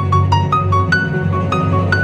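Background music: a simple melody of separate piano notes, about four or five a second, over a steady low bass.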